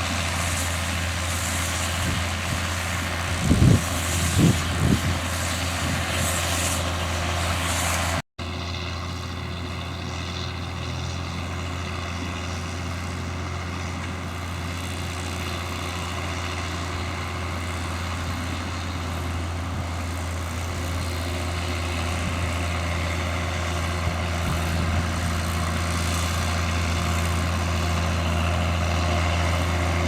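John Deere 7710 tractor's six-cylinder diesel running steadily under load, with a Krone round baler-wrapper working behind it. A few heavy low thumps come a few seconds in, and the sound cuts out for an instant about eight seconds in before the steady drone resumes.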